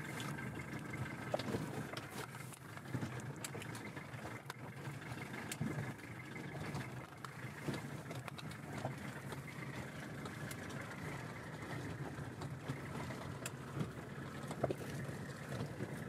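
Pickup truck engine running at low speed, heard from inside the cab as it crawls along a rough dirt track, with scattered small knocks and rattles.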